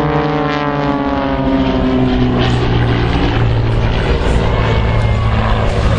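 A propeller aircraft's engine passing by, its pitch falling steadily over the first couple of seconds, then a steady low drone.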